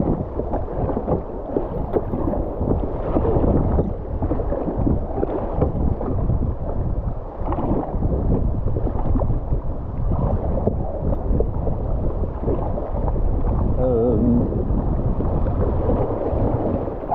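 Whitewater rushing and splashing around a kayak in shallow rapids, with wind buffeting the microphone.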